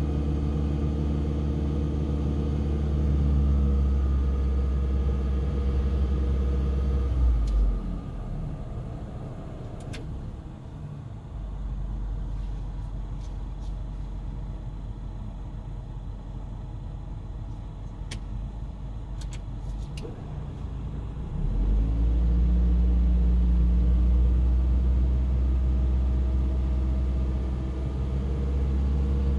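Toyota Tercel's air conditioning making its abnormal noise: a loud, steady low hum. It cuts out about seven seconds in, leaving a quieter rumble with a few faint ticks, and comes back about twenty-one seconds in.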